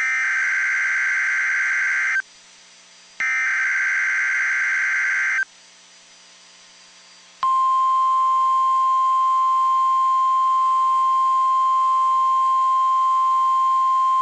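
NOAA Weather Radio Emergency Alert System signal: two harsh buzzing SAME data-header bursts, each about two seconds long with a second's pause between, then about seven seconds in the steady single-pitch weather-radio attention tone sounds. The header and tone announce a child abduction emergency (Amber Alert).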